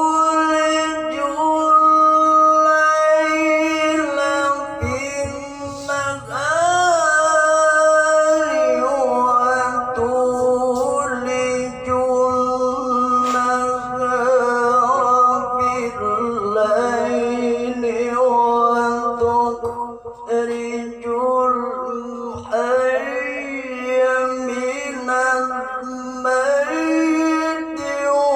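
Male qari reciting the Quran in the melodic tilawah style, one voice holding long notes and ornamenting them with runs and glides, with short breaks between phrases.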